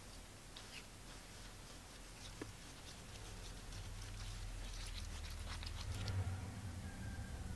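A plastic stick stirring a thick liquid in a paper cup: faint scattered scrapes and ticks against the cup, busiest about two-thirds of the way through, over a low hum.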